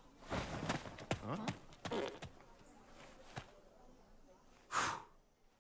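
Brief wordless vocal sounds with sliding pitch in the first two seconds, a few faint clicks, then a short rush of noise nearly five seconds in.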